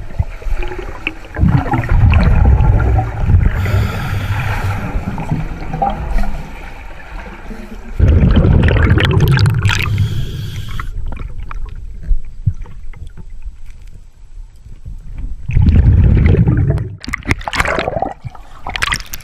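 Scuba breathing underwater through an air tank's regulator: a hissing inhale and then bubbling exhaled air, repeated over a few breaths.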